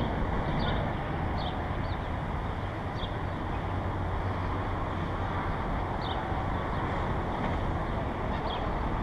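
Steady low outdoor rumble of wind on the microphone and distant traffic, with short high chirps now and then, several in the first two seconds and a few more near the end.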